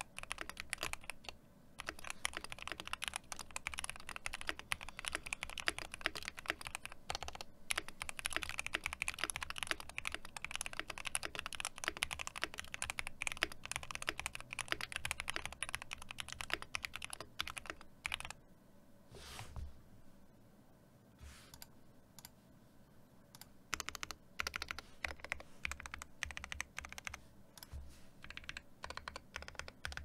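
KBD8X MKII mechanical keyboard with Alpaca linear switches on a brass plate and GMK keycaps, typed on fast and continuously: a dense stream of keystroke clacks. Past the middle it thins for several seconds to a few single strokes, then fast typing resumes.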